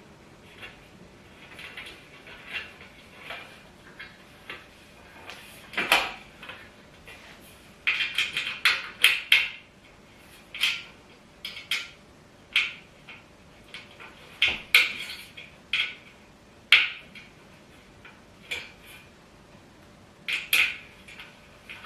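Irregular metallic clicks and clinks of an Allen key and bolts during flat-pack dining table assembly, with a quick run of clinks about eight seconds in.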